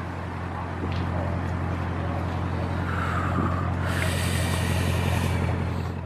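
Audi RS7's twin-turbo V8 idling at the tailpipes with a low, steady note, a little louder from about a second in.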